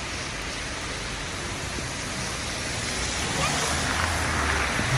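Steady hiss of heavy rain. A car drives past on the wet road over the last two seconds, its tyre swish and engine swelling the sound.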